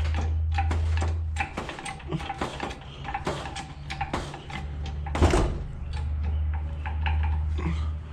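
Hydraulic floor jack being pumped under a car, its handle and lifting arm clicking about two to three times a second, with one louder knock about five seconds in.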